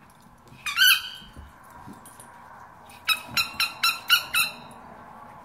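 Squeaker in a Kong tennis ball squeaking as a husky puppy chews it: one longer squeak about a second in, then a quick run of six short squeaks near the middle.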